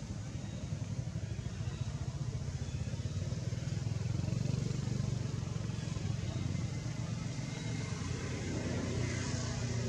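Steady low engine rumble of nearby motor traffic, swelling a little about halfway through.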